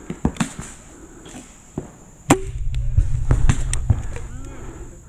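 Pump paintball pistols firing, a scattered series of sharp pops with paintballs striking, the loudest pop about two seconds in. A low rumble follows for about a second and a half, with further pops over it.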